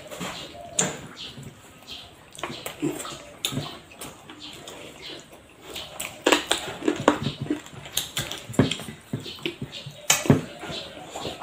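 Eating by hand: wet chewing and lip-smacking, with fingers squishing rice against plates. It comes as a string of short clicks and smacks, busier from about six seconds in.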